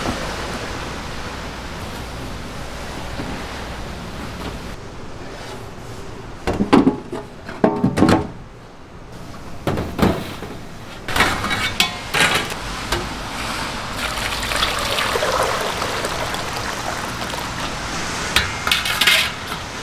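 Cooking utensils and cookware clattering at a street-food stall: irregular sharp knocks and scrapes, in clusters from about six seconds in and again near the end, over a steady hiss of background noise.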